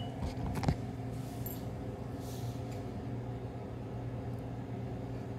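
A steady low machine hum with a few even tones, and one sharp click a little under a second in, followed by faint rustles.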